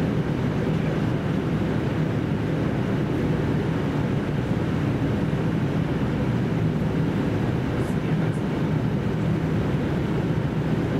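Steady running noise inside a JR Central KiHa 75 diesel railcar under way: the diesel engine's low drone together with wheel and rail noise, even and unbroken.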